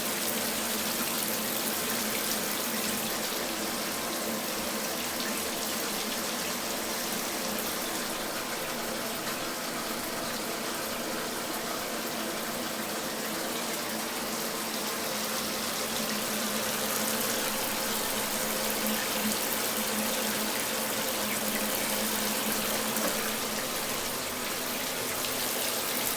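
Shower running steadily: a continuous spray of water with no breaks.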